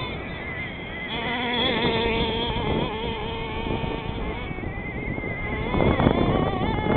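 Small nitro glow-fuel engine of an HPI Firestorm RC truck, running at a high-pitched whine that wavers up and down with the throttle. It swells louder about six seconds in.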